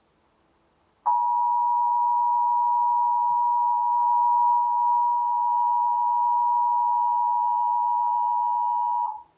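Emergency Alert System attention signal: a steady two-tone alarm of two pitches close together (853 and 960 Hz), starting about a second in, holding for about eight seconds and then cutting off sharply. It marks the start of an emergency broadcast message.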